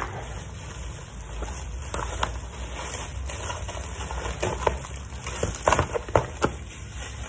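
Crinkling plastic wrap and crunching cardboard: a treat puzzle toy being pulled out of its plastic wrapping while a Labrador chews the torn cardboard shipping box. Irregular crackles, with a few sharper snaps in the second half.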